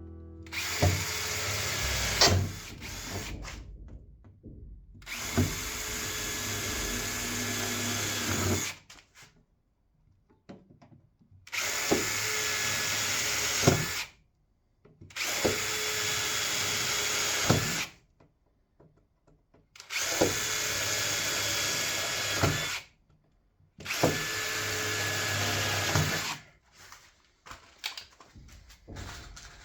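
Handheld power tool run in about six bursts of two to three seconds each, each starting with a sharp spike and stopping abruptly, with short silences between.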